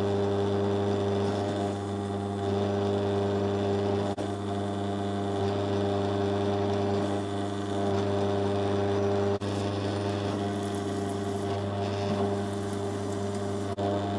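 Pillar drill running steadily, with a homemade silver-steel counterbore cutting into an aluminium plate while a brush clears the clogging swarf so it keeps cutting. The hum breaks off very briefly three times.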